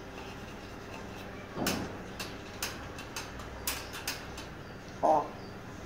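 African grey parrot in its wire cage: a series of sharp, irregular clicks and knocks, with one short pitched call about five seconds in.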